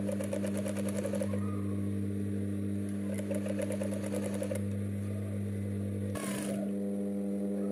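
Sewing machine stitching bias binding onto the edge of a tablecloth: a steady motor hum under fast, even runs of needle strokes, the stitching stopping about six seconds in.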